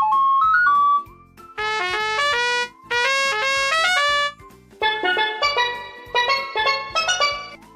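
Instrumental melody played phrase by phrase, each phrase in a different instrument sound: a plain, clear-toned line, then a brassy, trumpet-like passage, then bright struck notes.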